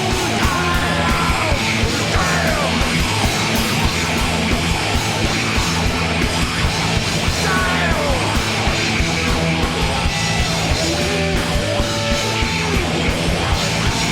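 A rock band playing a loud, distorted instrumental passage over a driving low rhythm, with high notes sliding up and down over it several times.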